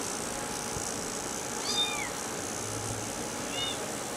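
Five-week-old Bengal kitten giving two high-pitched mews: a longer arching one about two seconds in and a short one near the end.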